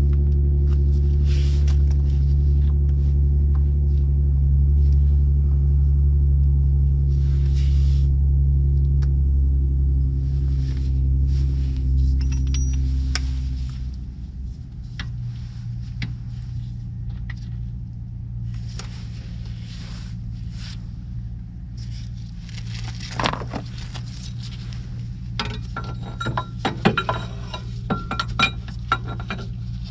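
Metal tools and a wheel-bearing press tool clinking and knocking at a car's rear wheel hub, in scattered clicks with a busier run of metallic clinks over the last several seconds. A steady low hum runs under the first half and drops away about halfway through.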